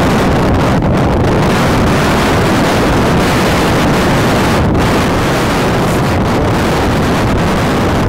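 Gale-force wind blowing hard across the microphone, loud and unbroken, over big surf breaking on a rock shelf.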